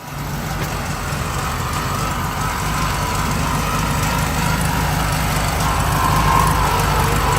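1971 VW Bus air-cooled flat-four idling roughly, with a steady whine over it that fits the owner's complaint of a noisy generator. The engine runs rich on a carburettor that is not adjusted right.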